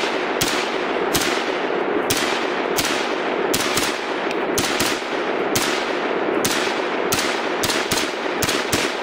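Smith & Wesson M&P15 AR-15 firing .223 rounds in a rapid string of semi-automatic shots, about two to three a second and often in quick pairs, each sharp crack trailed by echo that fills the gaps: a magazine being emptied.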